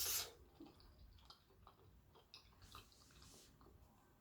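Faint chewing of macaroni and cheese: soft, scattered wet mouth clicks, after a brief breathy hiss at the start.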